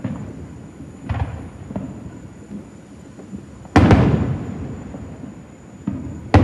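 Aerial fireworks shells bursting in the distance: a string of sudden booms, each trailing off in a rumble. The loudest comes about four seconds in and has a long rolling tail.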